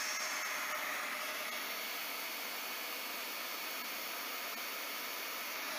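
Hot-air plastic welder blowing steadily: an even hiss of air from its blower and nozzle.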